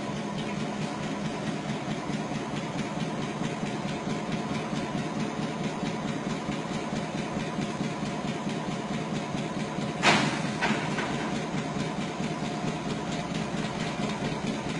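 Locomotive engine idling with a steady hum. About ten seconds in there is a single sharp knock, followed by a fainter one just after.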